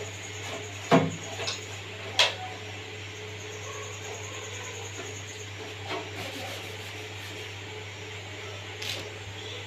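A few scattered sharp clicks and knocks, the loudest about a second in, over a steady low hum.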